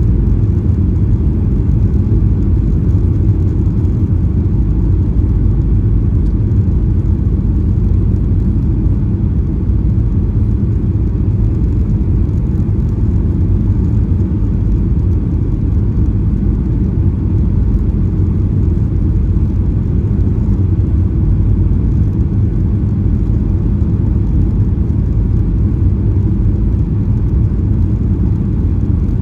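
Steady low rumble of cabin noise inside a Boeing 737-800 on final approach, heard from a window seat by the wing: the CFM56-7 turbofan engines and the airflow over the extended flaps.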